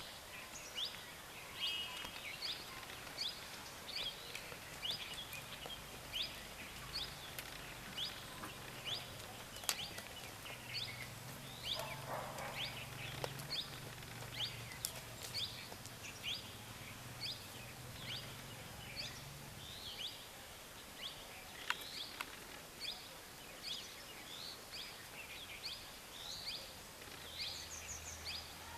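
A bird calling over and over in short, high chirps, one to two a second, over steady outdoor background noise, with a faint low hum through the middle.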